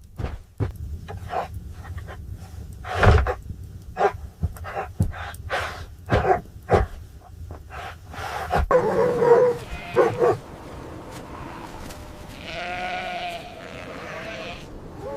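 A run of irregular knocks and steps, then livestock bleating: short calls about nine seconds in and a longer, wavering bleat near the end.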